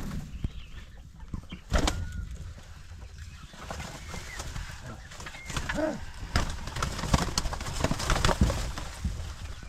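Domestic birds calling softly a few times, over scattered knocks and rustling.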